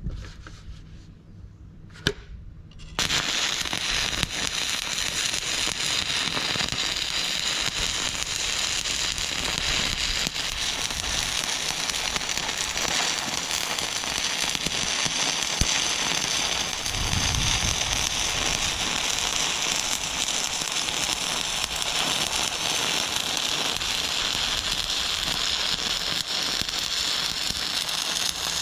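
Stick (SMAW) welding arc struck about three seconds in, just after a single sharp tap, then a steady dense crackle and sizzle as a weld pass is run with a flux-coated electrode set at about 107 amps.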